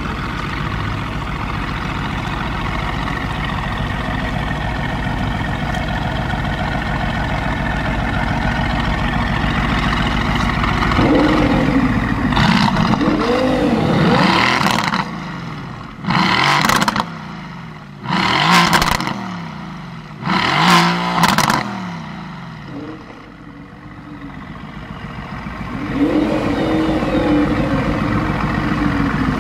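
Mercedes-AMG GT S's tuned twin-turbo V8 through a Per4mance aftermarket exhaust, running steadily at idle, then revved. There are a couple of rising and falling revs, then three short, sharp blips, each cut off quickly. The engine settles back and swells again near the end.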